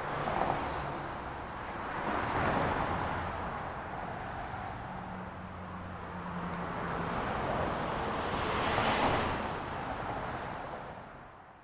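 Road traffic: vehicles passing in swells of tyre and engine noise, with a low engine hum in the middle, fading out near the end.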